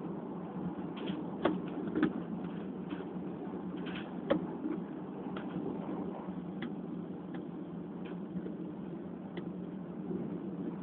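Electric S-Bahn commuter train running at speed, heard from inside the carriage: a steady low rumble with irregular clicks and knocks from the wheels on the track, the sharpest ones in the first half, fainter ticks later.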